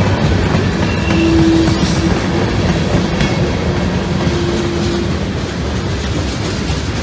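Freight train tank cars rolling past close by, steel wheels rumbling and clacking steadily on the rails. A faint thin squeal comes and goes in the middle.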